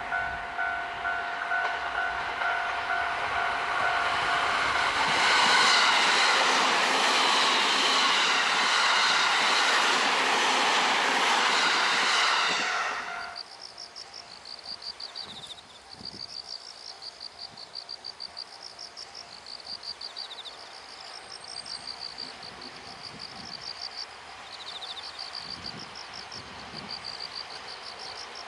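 An electric train running past on the rails, growing loud from about five seconds in with a steady rush and clatter of wheels. About thirteen seconds in it cuts to a much quieter scene: insects chirping in rapid repeated trills over the faint sound of a train approaching slowly.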